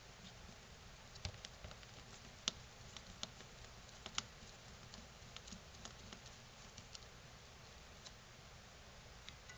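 Faint, scattered small clicks of a precision screwdriver working the tiny corner screws of a smartwatch's plastic back case, over a low steady hiss.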